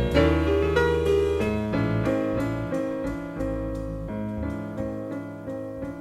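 Jazz piano trio playing live: acoustic piano lines and chords over double bass, recorded off an FM broadcast onto cassette tape.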